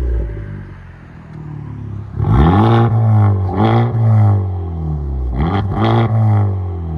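Honda Civic Type R's turbocharged 2.0-litre four-cylinder idling through a loud aftermarket exhaust, then revved up and let fall back four times in quick succession from about two seconds in.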